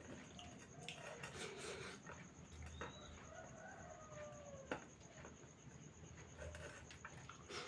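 Chickens heard faintly: clucking and a rooster's long crow about three seconds in, with a few sharp clicks.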